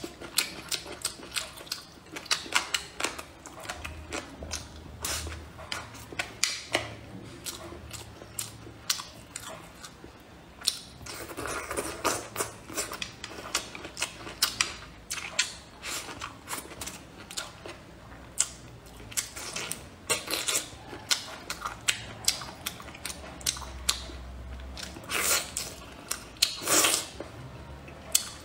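Close-miked chewing and wet mouth sounds of a person eating braised pork and rice, many quick sharp clicks and smacks. There are a few longer, louder stretches near the middle and near the end.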